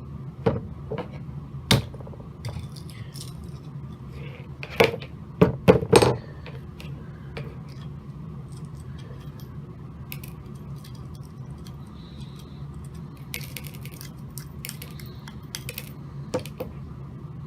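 Sharp clicks, knocks and clatters of a wristwatch and its small metal parts being worked apart with hand tools. The loudest knocks come about five to six seconds in, with lighter ticking later. A steady low hum runs underneath.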